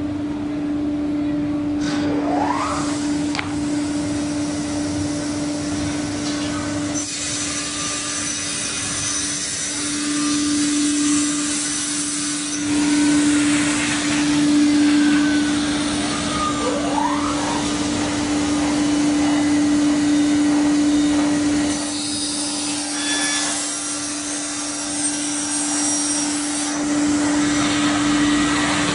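Plywood double size saw running: a steady motor hum with the hiss of its dust extraction, and the rasp of the circular blades trimming a plywood panel's edges swelling in stretches of several seconds.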